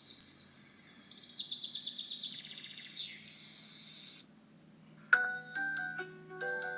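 FreedomPop phone ringtone of rapid, high bird-like chirping and twittering, cutting off suddenly about four seconds in. About a second later another ringtone starts, a melody of sustained chiming tones.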